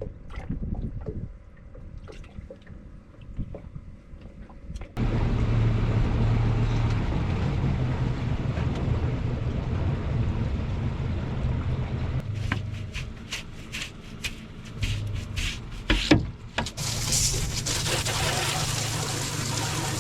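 Water running and splashing, starting suddenly about five seconds in, with a series of sharp clicks and knocks about twelve to sixteen seconds in.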